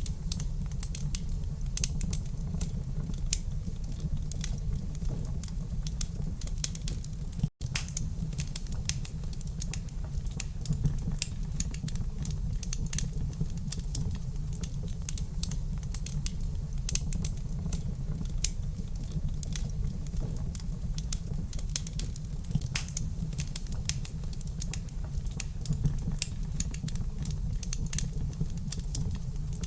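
Wood fire crackling in a fireplace: irregular sharp pops and snaps over a steady low rumble. The sound drops out for an instant about seven and a half seconds in.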